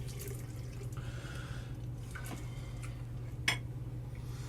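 Quiet room tone with a steady low hum, a few faint small handling sounds and one sharp click about three and a half seconds in.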